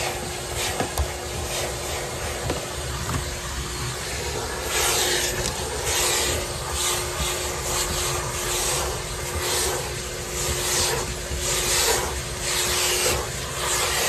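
Wet-and-dry upholstery vacuum cleaner running with a steady whine while its brush nozzle is pushed back and forth over a car's carpeted floor mat, sucking up dust and debris. From about five seconds in, the suction hiss surges with each stroke, about twice a second.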